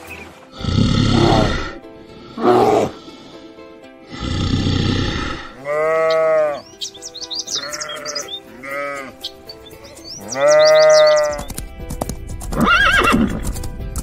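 Elephant calls over background music: three loud, harsh trumpeting blasts in the first few seconds. Then sheep bleat four times, the last bleat the longest, with small birds chirping, and a horse's call comes near the end.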